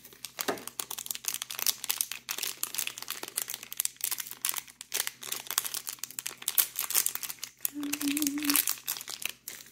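Crinkly toy packaging wrapper being handled and opened by hand: a dense, uneven run of crinkles and crackles.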